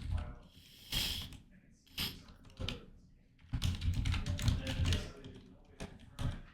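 Computer keyboard being typed on in quick bursts of keystrokes, with a few single key clicks in between.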